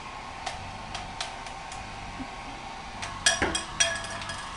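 Hair dryer running steadily, with a faint steady whine. Several sharp clicks or clatters cut across it, the loudest a quick cluster of ringing clicks about three seconds in.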